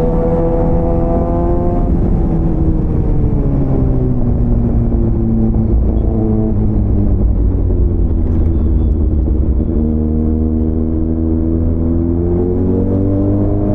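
Motorcycle engine and exhaust running under way. Its pitch drops over a few seconds as the bike eases off, holds steady for a while, then climbs again near the end as it pulls away, over a constant low rumble.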